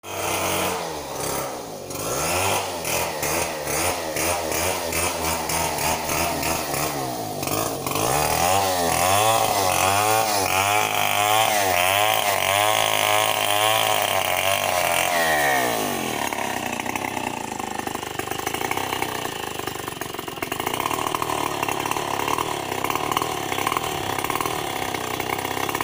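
Chainsaw cutting into a melinjo tree, its engine note rising and falling over and over. About sixteen seconds in it drops to a lower, steadier, quieter run.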